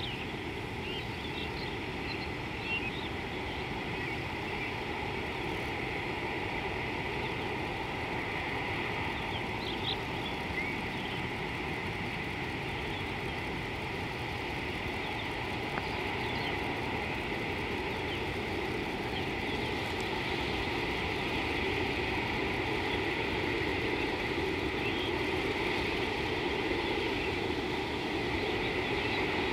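Steady low rumbling background noise, getting slightly louder towards the end, with a few faint bird chirps in the first seconds and again about ten seconds in.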